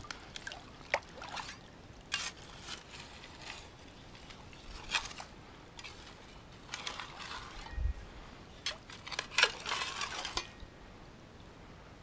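Shallow creek water splashing and sloshing in short, irregular bursts, with one dull low thump about eight seconds in.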